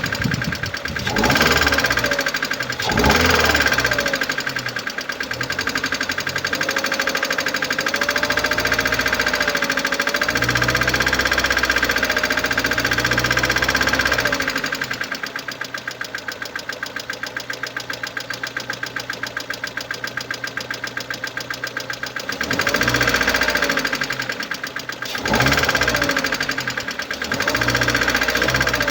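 Mercedes-Benz A160 (W169) 1.5-litre M266 petrol four-cylinder engine running with a rapid, even knocking. It is revved briefly a few times near the start and again near the end, and idles steadily in between. The seller attributes the noise to a defective hydraulic cylinder.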